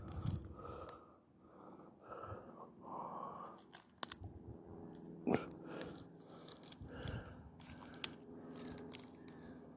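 Footsteps crunching through dry leaves and undergrowth, with a few sharp snaps.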